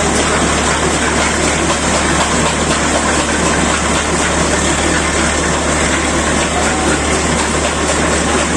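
Engine-driven drilling machine for digging an electric-pole hole, running steadily with a constant low hum under loud, even mechanical noise.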